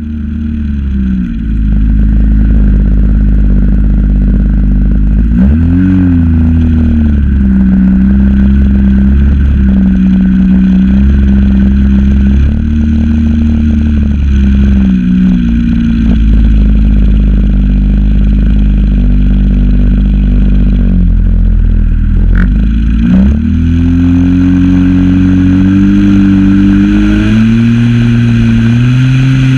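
Zenoah ZP 20 two-stroke gas engine of an RC plane, heard close up from a camera mounted on the airframe. It runs at a steady setting, wavers briefly in pitch twice, then climbs in pitch over the last few seconds as the throttle is opened.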